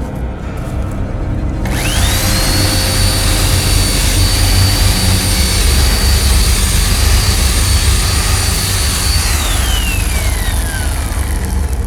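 A machine whine: a loud rushing hiss with a high whine starts abruptly, climbs quickly and holds steady for about seven seconds, then winds down in pitch, over a constant low rumble.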